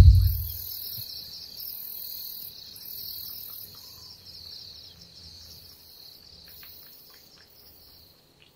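Crickets chirring: a steady, fast-pulsing high trill that fades out gradually, with a few faint ticks near the end.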